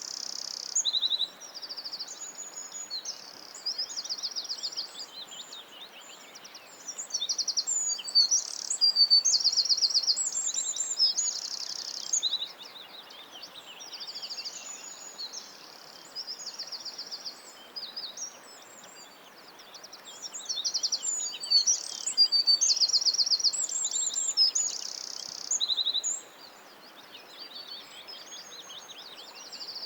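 Several songbirds singing at once, overlapping high chirps and fast trilled phrases that come and go every second or two, over a soft, steady background hiss.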